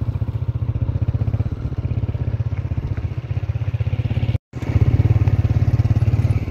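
Motorcycle engine running steadily at cruising speed, a rapid low pulsing. It cuts out for a split second a little after four seconds, then comes back a little louder.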